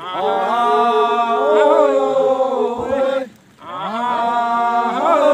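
Men's voices chanting together in long, drawn-out notes that slide in pitch: a traditional Timorese ritual chant. The chant breaks off briefly a little past the middle and starts again.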